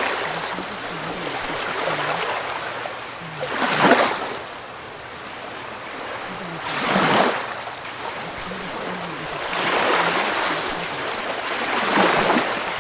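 Ocean waves washing in, the noise swelling and ebbing in a surge every two to three seconds, with the strongest surges about four and seven seconds in.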